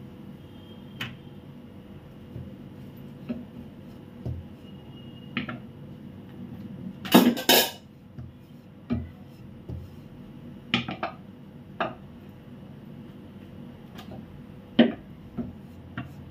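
Wooden rolling pin and round wooden rolling board knocking as roti dough is rolled out, in scattered short knocks. The loudest is a quick double knock about seven seconds in.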